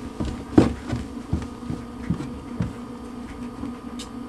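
A steady low buzz with several irregular knocks or thumps, the loudest about half a second in.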